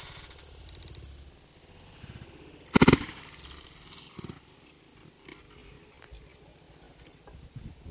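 A bunch of coconuts dropped from the top of a tall coconut palm hits the ground with one heavy thud about three seconds in, followed by a fainter thump about a second later.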